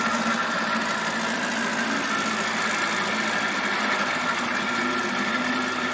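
Old outboard motor on a small fishing boat running steadily with an even drone.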